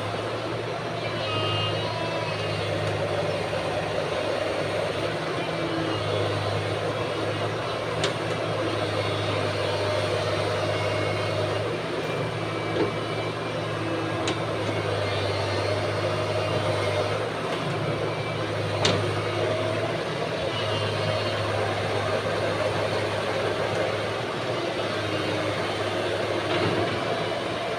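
Heavy diesel machinery, an excavator's engine, running steadily, its low drone swelling and easing every few seconds as it works under load. A few sharp knocks come through, one about eight seconds in and one past the middle.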